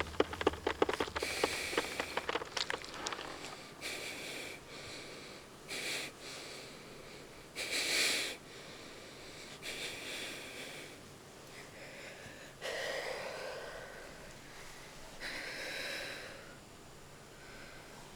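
Raspy, wheezing breaths or snorts coming one at a time, roughly every two seconds, after a quick run of clicks in the first few seconds.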